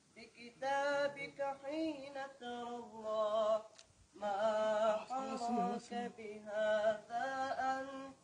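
Boys singing an Arabic Islamic nasheed unaccompanied, in long held phrases with short breaks between them, one about four seconds in.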